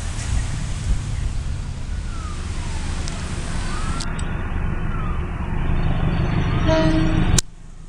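Wind rumbling on the microphone, with faint siren-like wailing tones rising and falling in the first half. After a cut, a diesel locomotive approaches, its rumble growing louder toward the end before the sound drops out abruptly.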